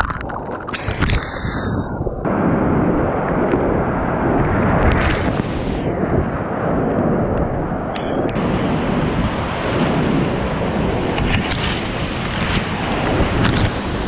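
Flooded river's whitewater rushing loudly all around a kayak running the rapids, with short splashes from the paddle strokes.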